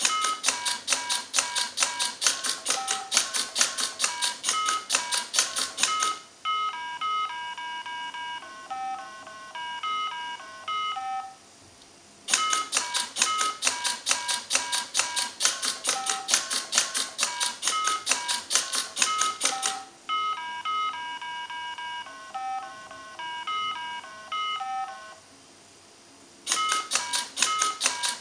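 A mini Simon electronic memory game beeping out sequences of its pitched colour tones, twice in a row, alternating with longer stretches in which the button-pressing robot clicks rapidly and steadily as it repeats each sequence, the game's tones sounding among the clicks.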